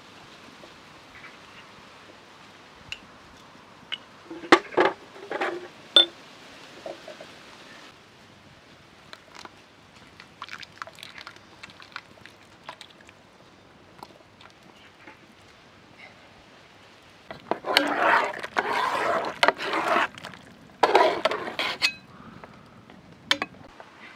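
Spoons and small clay cups clinking and scraping against a metal cooking pot as pastes are scooped and poured into it. A few sharp clinks come about four to six seconds in, and two longer spells of scraping and clattering come near the end.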